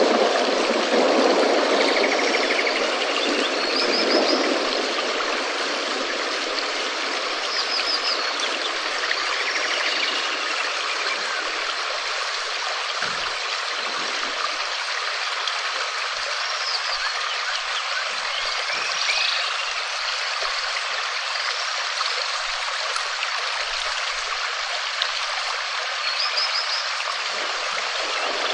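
Steady rain falling, an even hiss, with a deeper rushing in the first few seconds that then eases. Short high chirping calls recur every couple of seconds over the rain.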